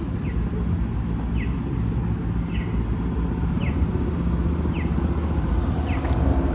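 Street traffic rumbling steadily. Over it, a short high chirp that falls in pitch repeats about once a second at even spacing.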